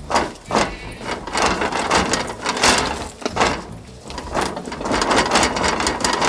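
Wooden window frame rattling, knocking and scraping in quick irregular clatters as it is pried and worked loose by hand and with a hand tool.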